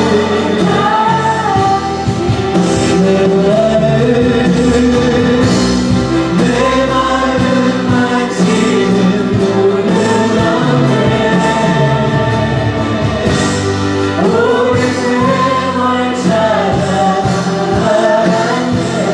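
A group of voices singing a Christian worship song together with instrumental accompaniment, in long held phrases that rise and fall.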